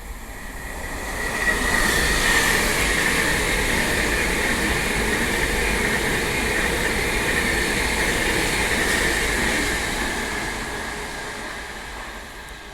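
Train passing through a station: the noise builds over about two seconds, holds steady for around eight, then fades away. A high, steady whine runs through the pass.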